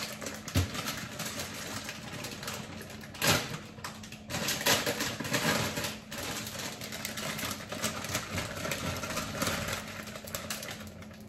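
Plastic bag of baby potatoes crinkling and rustling as it is handled, with scattered clicks and a sharper knock a few seconds in, over a steady low hum.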